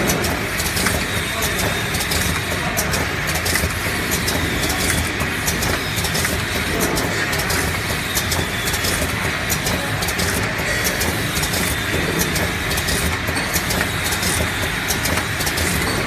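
Automatic eye drop filling, plugging and capping machine running: a steady mechanical hum with frequent short clicks and rattles from its moving parts.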